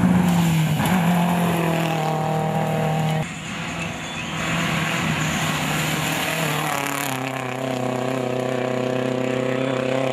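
Rally car engines running hard at steady high revs on a dirt stage. One car approaches, then after a break about three seconds in another car's engine is heard, its note dropping to a lower steady pitch about seven seconds in as it goes past and away.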